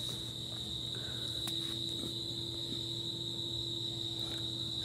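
A steady, unbroken high-pitched insect trill over a faint low hum.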